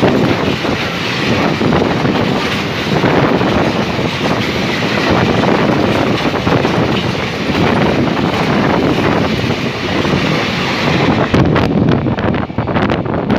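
A freight train of empty flatbed wagons rolling past close by, its wheels and bodies making a loud, continuous rattling rumble. About eleven seconds in the train noise thins out and wind buffets the microphone.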